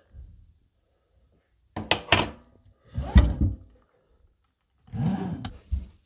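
Three bursts of knocking and clatter from metal tap parts and tools being handled against a stainless steel sink. The heaviest thump comes about three seconds in.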